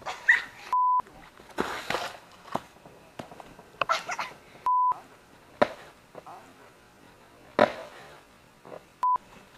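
Three short, loud 1 kHz censor bleeps, each blanking out a word, between brief bursts of voice and a few sharp knocks.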